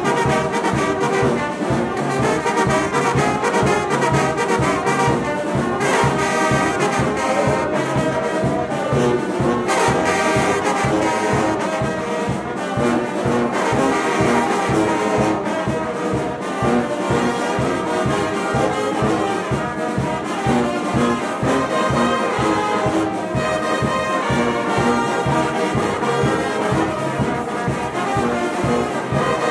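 Brass band playing a continuous tune, with trombones and trumpets over a steady low beat about twice a second.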